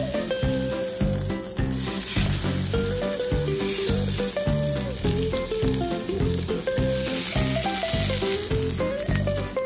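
Ahi tuna steak sizzling in hot oil in a frying pan as it is seared on its sides, the sizzle swelling at times as the fish is pressed to the pan. Background music with a melody and bass plays underneath.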